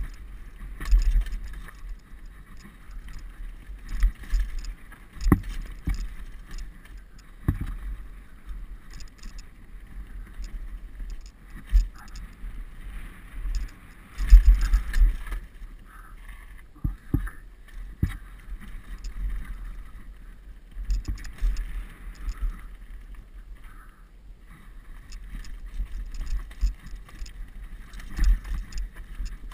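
Downhill mountain bike running fast over dirt, stones and roots: wind buffets the helmet-mounted microphone with a low rumble, broken by frequent sharp knocks and rattles from the bike as it hits bumps, the heaviest jolt about halfway through.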